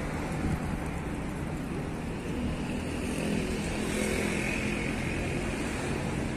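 Steady city road traffic noise, with engines and tyres of passing cars, swelling a little as a vehicle passes about four seconds in.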